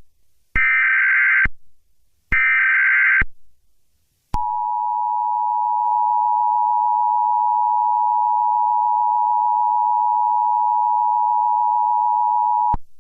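Emergency Alert System SAME header: the last two of three screechy digital data bursts, each just under a second long. About four seconds in comes the EAS attention signal, a steady two-tone 853/960 Hz tone held about eight seconds that cuts off sharply near the end. Together they mark the start of a new alert.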